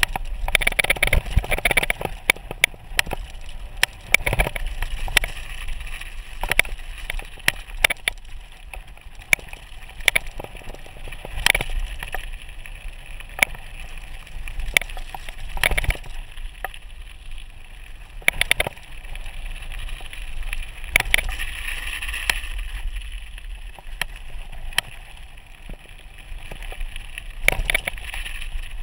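Mountain bike rolling downhill on a loose gravel road: tyres crunching over the gravel, with frequent sharp rattles and knocks from the bike over bumps and a steady low rumble underneath.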